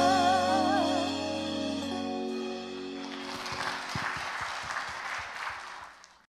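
A woman's held sung note with vibrato ends about a second in over the band's final chord on keyboard and bass guitar, which dies away over the next two seconds. Then an audience claps for about three seconds, fading out near the end.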